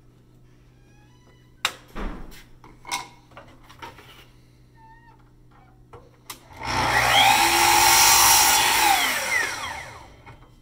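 Sliding compound miter saw started, run briefly through a crosscut in a small piece of wood and let wind down, its motor whine rising, holding and falling away over about three seconds. A few sharp knocks of the wood being handled and set on the saw come before it.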